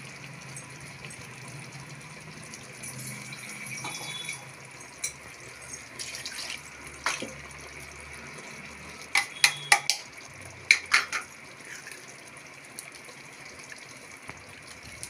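Steady water-like hiss of a kitchen, with a few sharp clicks about five and seven seconds in and a short run of them between nine and eleven seconds.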